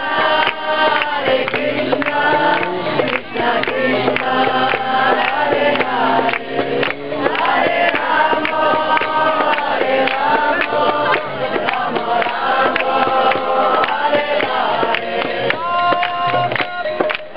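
Devotional kirtan sung by a group of many voices in long held lines, over a steady beat of rapid percussion strikes.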